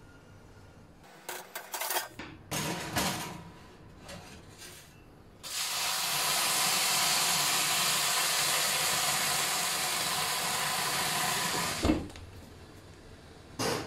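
Water hitting a hot tray in a preheated oven flashes to steam with a loud, steady hiss lasting about six seconds, after a few clicks and knocks from the oven knob, door and tray. The oven door shuts with a thump just as the hiss stops.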